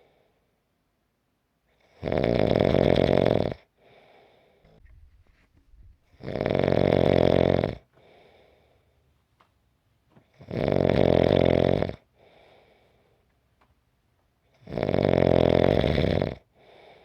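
A person snoring steadily: four loud snores about four seconds apart, each lasting about a second and a half and followed by a fainter breath.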